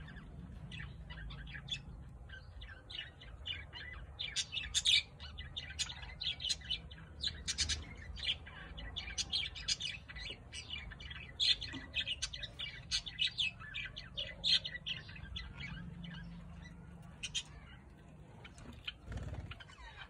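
Budgerigars chirping and chattering in quick, short, high notes. The chirps come thickest through the middle and thin out toward the end.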